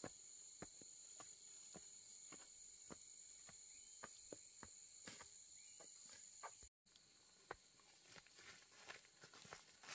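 Faint footsteps on a rocky dirt trail, about two steps a second, over a steady high-pitched chorus of insects.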